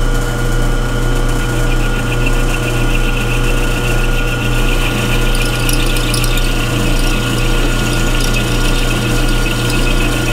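Milling machine running with a four-flute end mill cutting down into a rough hole in a cast iron casting: a steady motor hum under the fluttering chatter of the cut, as the hole is trued up to take a thread insert.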